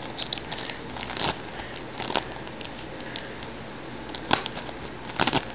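Thin plastic bag crinkling and rustling as it is slit open with a knife, in short irregular rustles with a few sharper ones, the loudest near the end.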